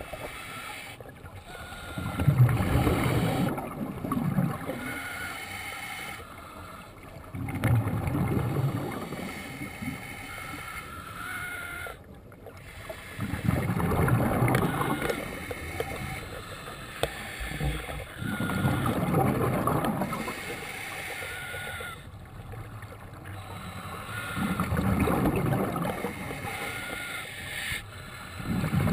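A scuba diver breathing underwater through a regulator: loud bubbling exhalations about every five to six seconds, with quieter inhalations between.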